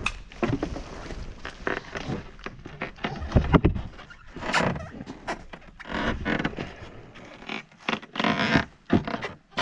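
Irregular knocks, thuds and rustling of objects being handled, with a louder knock about three and a half seconds in.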